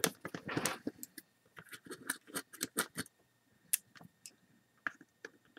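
Irregular light clicks and ticks of a small size 00 Phillips screwdriver turning a tiny screw in a webcam's plastic housing, mixed with the small knocks of the plastic being handled.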